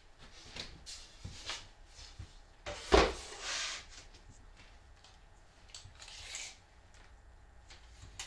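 Handling of a thin plywood sheet on a cutting mat: light knocks, then one sharp thump about three seconds in as the sheet is set down, followed by a brief sliding rub as it is pushed into place. Around six seconds in there is a short rasp as a steel tape measure is drawn out along the edge.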